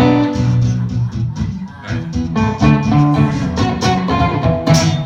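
Acoustic guitar being strummed and picked through loose chords, noodling between songs, which stops at the end.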